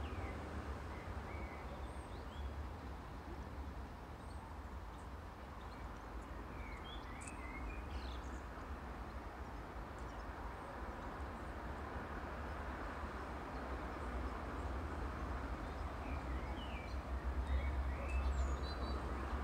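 Small birds chirping and twittering over a low rumble, with a distant diesel train approaching; the rumble grows louder near the end.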